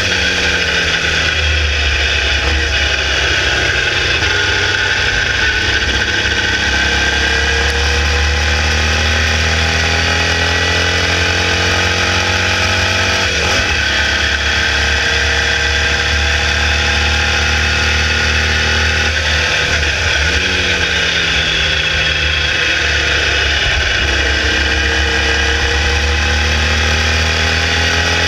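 The 1200cc air-cooled Volkswagen flat-four of a Formula Vee race car running hard, its pitch climbing steadily as the car accelerates. The pitch drops sharply about halfway through and again about two-thirds of the way in, as the driver changes gear.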